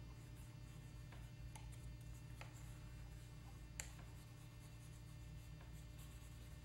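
Faint scratching and ticking of a pointed tool drawing lines through soft white ground on an etching plate, with one sharper click a little under four seconds in, over a steady low hum.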